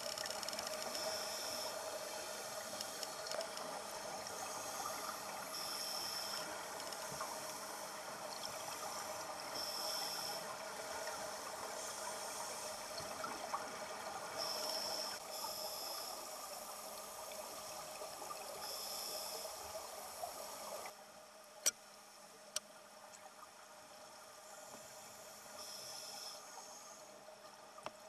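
Underwater sound of scuba divers: a steady bubbling rush of exhaled air, with a hissing breath through a regulator every few seconds. About three-quarters of the way through it turns quieter, with two sharp clicks.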